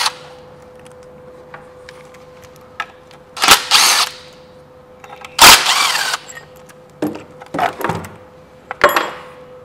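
A DeWalt cordless power tool spins bolts out of a starter motor's thin metal heat shield in two short runs, about three and a half and five and a half seconds in, the second the louder. Near the end come a few light metal knocks and rattles as the loosened heat shield is handled.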